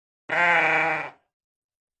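A sheep bleating once: a single wavering call about a second long that starts and stops abruptly.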